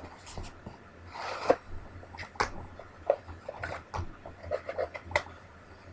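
Cardboard and plastic packaging of a DVD box set being handled: scattered rustling and scraping, a sliding rub about a second and a half in, and a few sharp clicks.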